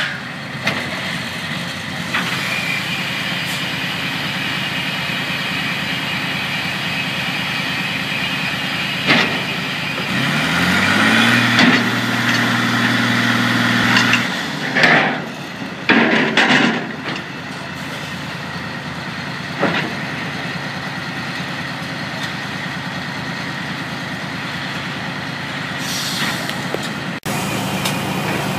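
Pipe handler's engine running steadily. It revs up about ten seconds in, holds the higher speed for about three seconds, then drops back. Several sharp knocks come through in the middle stretch.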